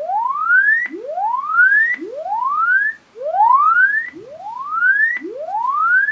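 Swept test tone from the loudspeaker of a homebrew NE5534P and LM380N audio amplifier under test. It rises from low to high pitch over about a second, cuts off and starts again, about six sweeps in a row.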